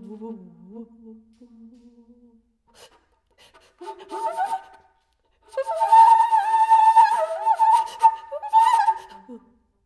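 Flute played with a lot of breath in the tone: a low steady tone fades out about two seconds in, a short breathy phrase follows, then a louder wavering high note, held for about four seconds with flutters and pitch bends, breaks off near the end.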